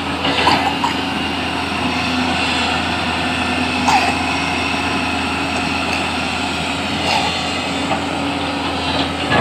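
Backhoe loader's diesel engine running steadily, with a few brief sharper sounds over it.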